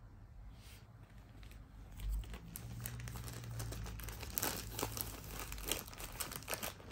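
Plastic packaging crinkling and rustling as it is handled, in irregular crackles that grow busier from about two seconds in.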